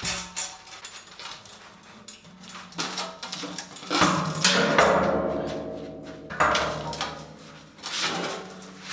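Steel gas-cylinder hand truck being worked under a welded sheet-steel stand and the stand tipped back onto it: metal clanks, knocks and scraping with some ringing, loudest from about four to six seconds in, with a few more knocks near the end.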